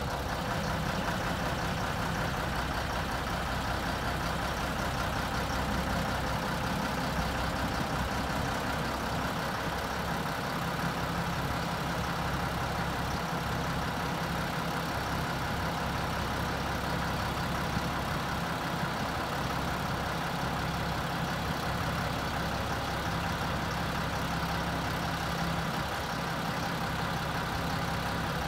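1993 GMC TopKick diesel truck engine idling steadily while it drives the hydraulic hoist that lifts the dump bed.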